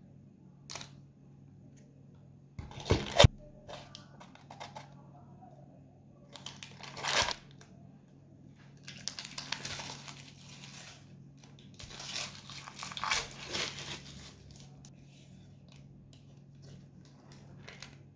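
Parchment paper crinkling and tearing in bursts as it is peeled off a slab of set chocolate fudge, with a sharp double knock on a wooden cutting board about three seconds in.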